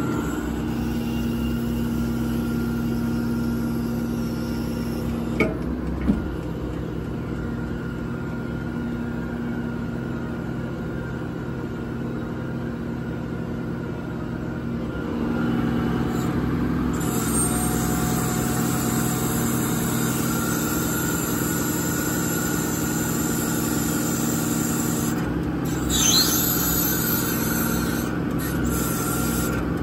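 Truck's 6.7 Cummins diesel running at a raised PTO idle, driving the hydraulics of an Altec bucket boom as it is worked. It is a steady hum that grows louder about halfway through, with two sharp clicks about five and six seconds in.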